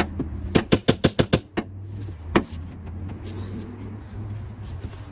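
Small hammer tapping on a car's wiper arm to knock it loose: a single sharp tap, then a quick run of about six taps, then one more, over a steady low hum.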